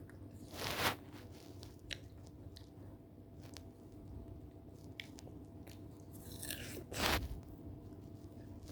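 Someone biting into and chewing chilled fruit, with two louder crunching bites, one just under a second in and one near the end, and faint wet clicks of chewing between them.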